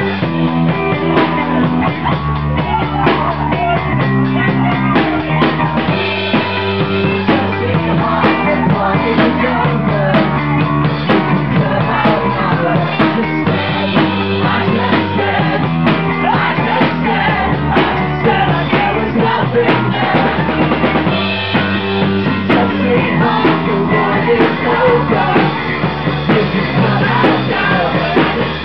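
A rock band playing live and loud: drum kit and electric guitar, with singing.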